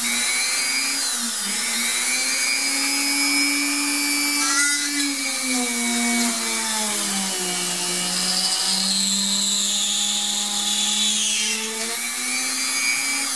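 Small drill press running at speed, its bit drilling a hole through a cured polymer clay bead that is pushed up into it by hand. Steady motor hum and whine that drops in pitch midway as the bit bites and rises again near the end.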